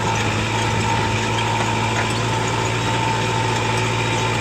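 Tractor diesel engine running steadily under way, a constant hum with a thin steady whine above it, heard from the driver's seat.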